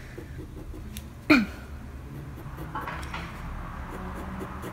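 Colored pencil hatching on paper: faint, repeated short scratching strokes of the lead. About a second in there is one short, loud sound that drops quickly in pitch.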